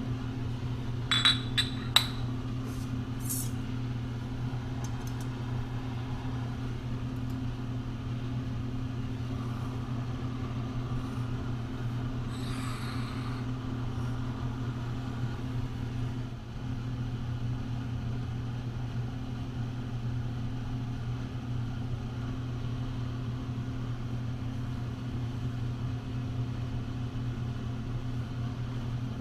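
Steady low machine-like hum, with a few sharp metallic clinks a second or two in and a softer clatter around the middle as steel tooling is set up and moved on a granite surface plate.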